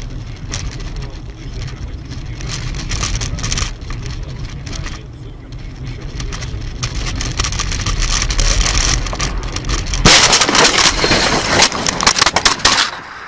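Car driving with steady road and engine rumble and scattered knocks, then about ten seconds in a loud crash: a burst of crunching and cracking impacts that goes on for a couple of seconds.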